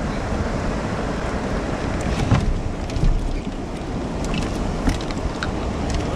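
Fast river current rushing past a kayak, with wind buffeting the microphone and a few short, sharp knocks or splashes.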